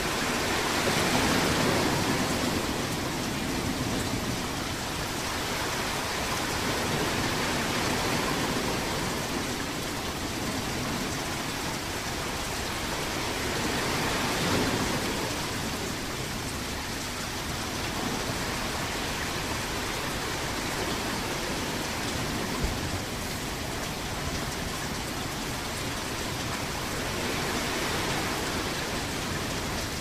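Ocean surf: a continuous wash of breaking waves that swells and eases every several seconds. A single short, low thump about three-quarters of the way through.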